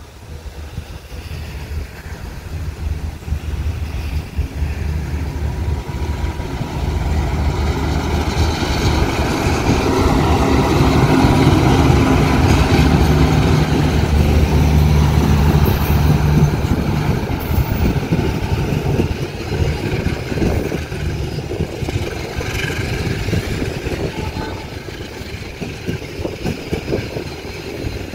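Diesel locomotive approaching and running past, its engine's low note growing louder over about ten seconds, loudest through the middle, then easing off as the train goes by.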